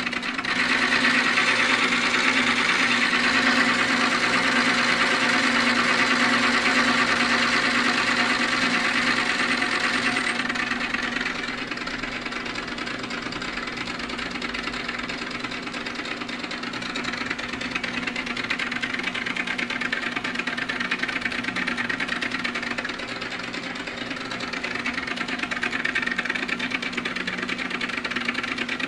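Manrod MR 301 lathe running steadily under a machining cut, a constant motor hum with a dense hiss of cutting noise above it, a little quieter from about eleven seconds in.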